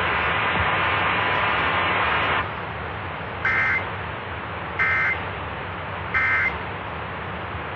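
Emergency Alert System end-of-message code on AM radio: three short bursts of two-tone digital data screech, a little over a second apart, over steady radio hiss. The hiss is louder for the first two seconds, then drops.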